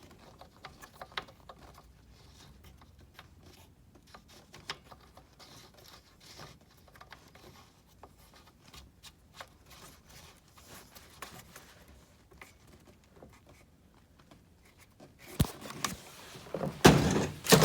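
Faint small clicks and rubbing from handling a plastic gas leaf blower, then a run of louder knocks and scrapes near the end as it is moved about.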